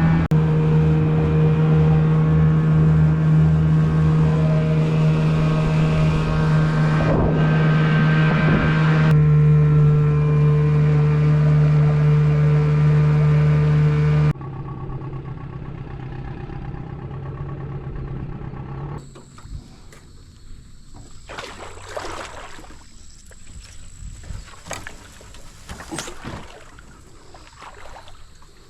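Small boat's outboard motor running steadily under way, a loud, even engine hum. About fourteen seconds in it drops suddenly to a much quieter hum, and a few seconds later the engine sound gives way to scattered knocks and rustles.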